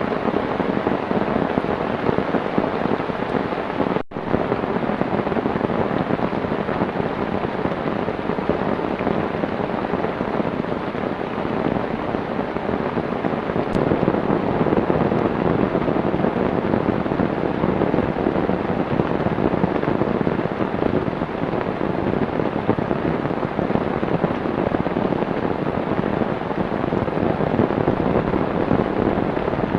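Heavy rain falling steadily, a dense even hiss, with a momentary break about four seconds in.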